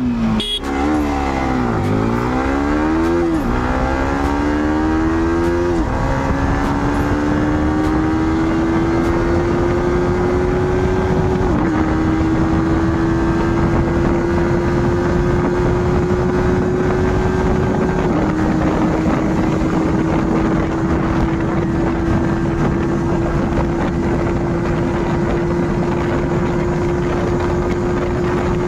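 Yamaha R15 V4's 155 cc single-cylinder engine pulling hard at full throttle through the gears. Its note climbs and drops sharply at each quick upshift, several times in the first few seconds and twice more later, then climbs slowly as the bike nears top speed, over a steady rush of wind.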